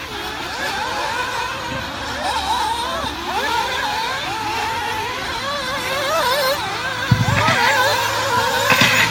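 Several 1/8-scale nitro RC buggy engines running at high revs around the track, their overlapping high-pitched whines rising and falling as the cars accelerate and brake. A low steady hum and a few clicks join about seven seconds in.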